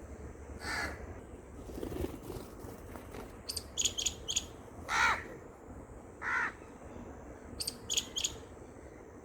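A crow cawing three times, each a short harsh call, interspersed with two quick runs of three or four shrill, high-pitched calls from a green parrot.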